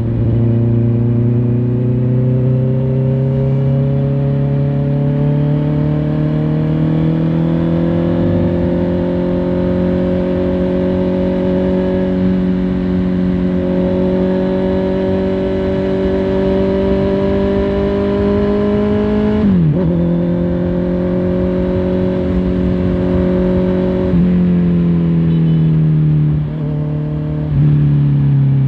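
Honda CBR650R's inline-four engine running under way, its pitch climbing slowly as it pulls. About two-thirds in the pitch dips sharply and comes back, as with a gear change. Near the end the pitch falls as the throttle eases off.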